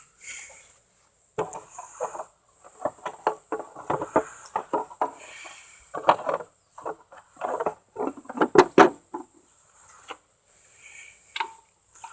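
Irregular clattering, knocking and scraping as parts of a riding lawnmower are handled and worked on by hand.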